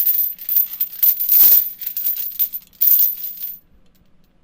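Metal chains rattling and jingling in a series of shakes, which stop about three and a half seconds in.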